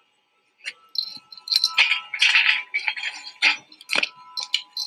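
Irregular light clinks, knocks and rustling as an astronaut floats through a space station hatch, hands and feet pushing off and brushing the hatch rim, equipment and stowed cargo bags, over a faint steady tone. The loudest knock comes about four seconds in.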